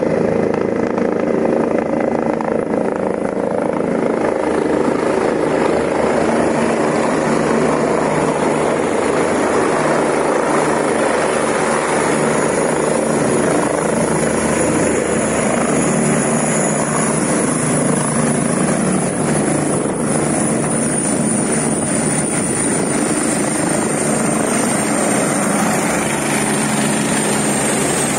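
Emergency medical helicopter descending and touching down on a helipad, its rotor and turbine engines running steadily and loud. A high whine comes in about halfway through and slowly drops in pitch toward the end.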